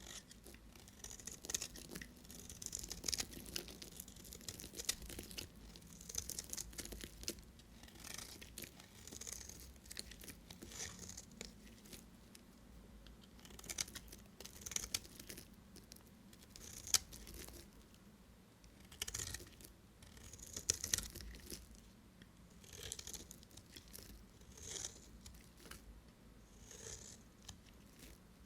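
Knife cutting dry bar soap: repeated crisp scraping strokes, about one every one to two seconds, with fine crackling as the soap shaves and crumbles.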